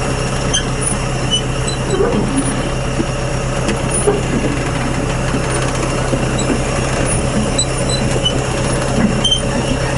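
Tractor engine running steadily while pulling a cup-type potato planter, with scattered light ticks and rattles from the planter's turning cup mechanism.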